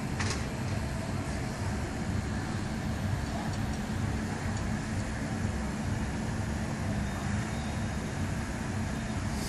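Steady low mechanical rumble with a constant hum from the fairground ride's machinery, with one short click about a third of a second in.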